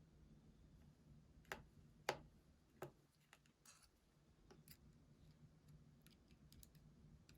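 Faint, scattered clicks of small metal tools and tiny parts being handled while the internal brackets of an iPhone 7 Plus are unscrewed and lifted out. The clearest are three sharp ticks about half a second apart, a second and a half in, with lighter taps later.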